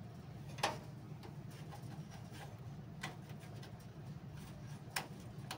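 Three sharp plastic clicks and taps from a power-switch cable and its connector being handled and fitted inside a desktop PC case, the loudest about half a second in, over a steady low hum.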